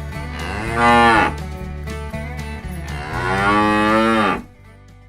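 Cattle mooing: a short moo about a second in, then a longer moo starting about three seconds in.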